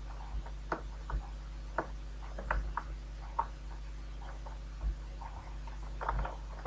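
Irregular clicks of a computer mouse and keyboard as diagram shapes are selected, copied and dragged, over a steady low electrical hum.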